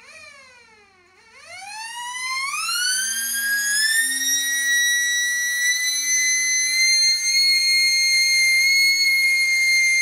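3D-printed resin tornado siren, its rotor driven by a racing-quad brushless motor on 16.6 volts. Its pitch falls briefly, then winds up over about three seconds into a loud, steady, high wail held at full throttle.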